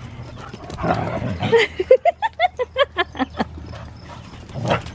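A dog at play giving a rapid string of about ten short, high yips, some five a second, the last ones dropping in pitch, after a brief scuffle. A single sharp knock near the end.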